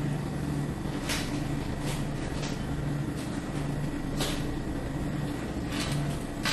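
Steady low hum of a convenience store's background, with several brief rustles or scrapes from handling things on the table.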